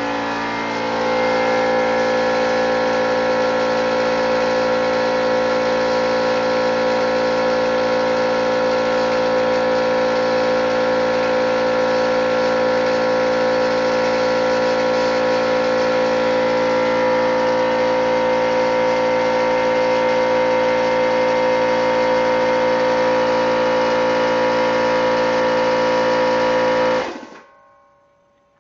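Air-powered 1/4-inch die grinder running at full speed with a steady high whine and air hiss while grinding a scrap of wood, scorching it. It rises in level and pitch about a second in and shuts off abruptly near the end.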